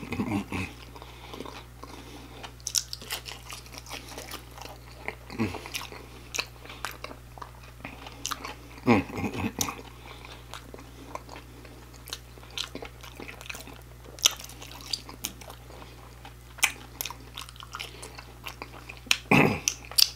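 Close-up chewing and crunching of fried, sauce-covered fries and battered shrimp: many sharp crunches and wet mouth sounds, with a few short, low hums of the voice about a second, five, nine and nineteen seconds in.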